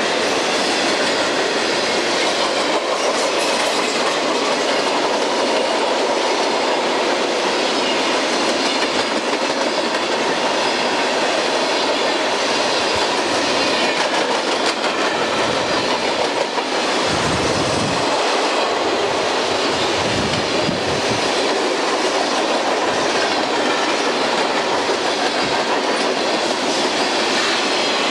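Freight cars of a long Burlington Northern train rolling past at close range: a steady, loud rush of steel wheels on the rails, with a couple of deeper swells about two-thirds of the way through.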